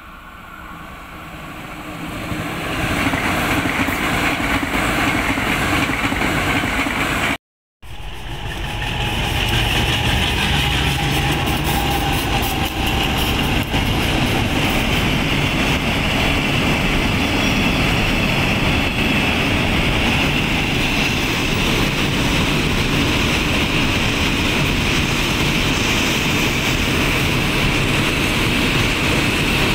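KTM Class 93 ETS electric train approaching and passing, growing louder over the first few seconds. After a sudden cut, two diesel-electric locomotives hauling a container freight train run past, the engines running with the steady noise of loaded container wagons rolling on the rails.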